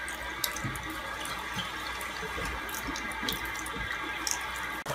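Bathroom tap running into a sink: a steady hiss of water, with a few light knocks and clicks scattered through it.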